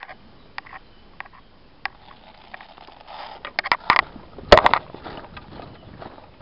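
Crackling and rustling of twigs and leaves as someone pushes through woodland undergrowth. Scattered sharp clicks come first, then a run of loud knocks and crackles, the loudest about four and a half seconds in.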